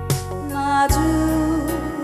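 Song accompaniment with drum hits and a held, wavering melody note, in the gap between sung lines of a live vocal performance.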